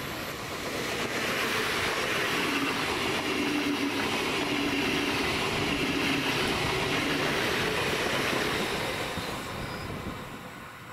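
WESTBahn class 4010 Stadler KISS double-deck electric multiple unit running past: steady rolling noise of wheels on rail with a low hum from the drive, loudest mid-pass and fading as the train moves away near the end.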